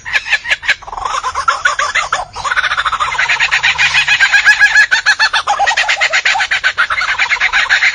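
A bird calling in a long, loud run of rapid repeated notes, with a brief break a couple of seconds in.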